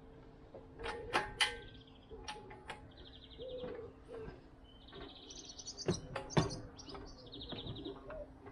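Bird calls: a short buzzy trill repeated about every two seconds, with several sharp knocks, the loudest about a second in and again around six and a half seconds, over a faint steady hum.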